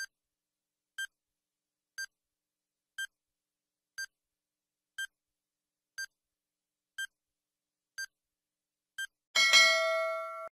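Quiz countdown timer sound effect: short beeps once a second, ten in all, then a loud ringing time's-up tone of several notes at once, fading over about a second.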